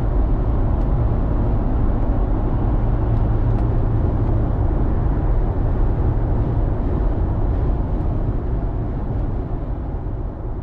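Steady road and engine noise of a car cruising on the highway, heard from inside the cabin, growing a little quieter near the end.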